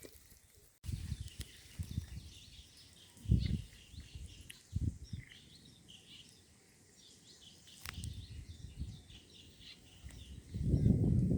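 Small birds chirping and twittering in the background, with irregular low rumbles and thumps, the loudest about three seconds in and again near the end, and a single sharp click about eight seconds in.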